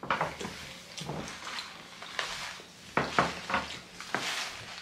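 Tabletop handling of fast-food packaging and food: a string of short crinkles and clicks, the sharpest about three seconds in.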